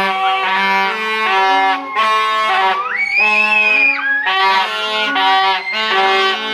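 Several children blowing plastic toy trumpets (baja) at once: overlapping steady honking notes at a few pitches, with a higher shrill note about three seconds in.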